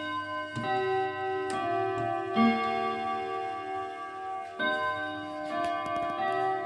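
Junghans chime clock playing its melody, striking one ringing note after another roughly a second apart, each note carrying on under the next.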